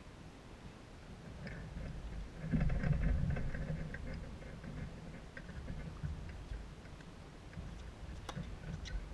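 Low outdoor rumble that swells for about a second and a half, about two and a half seconds in, then a sharp crack of a tennis racket striking the ball on a serve near the end.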